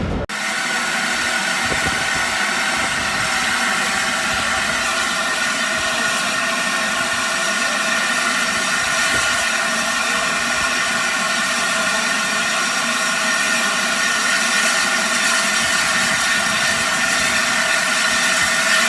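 Steady hiss of escaping steam from an LNER A4 Pacific steam locomotive, a continuous rush with several faint steady tones running through it.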